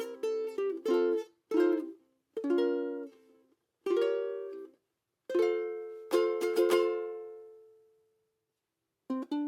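Polycarbonate ukulele strumming chords in short phrases, each cut off into a brief silence. About halfway through, one chord is left ringing and fades out, and after a short pause the strumming starts again near the end.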